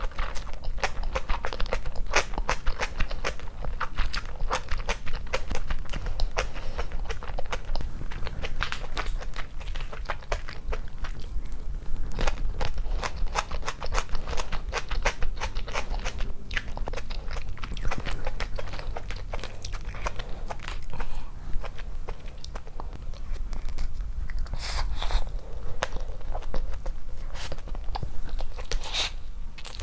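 A person chewing and biting food up close: a dense, irregular run of wet, crunchy clicks and smacks.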